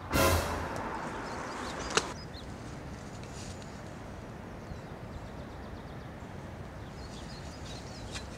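Woodland ambience: steady outdoor background noise with faint bird chirps. It is broken just after the start by a loud rustling thump and about two seconds in by a single sharp click.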